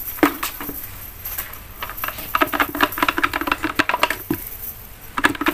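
Lead sinkers of a cast net clattering and clicking against concrete as the net is shaken out and gathered up, with a quick run of rattling clicks about halfway through.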